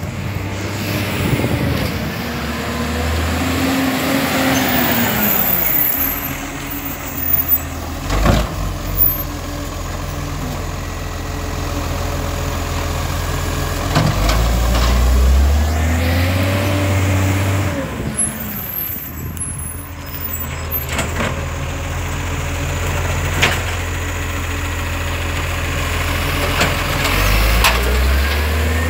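Side-loading garbage truck running beside the kerb. Its engine revs up and back down twice while the automated arm lifts and empties wheelie bins, with sharp knocks as a bin is shaken out and set down.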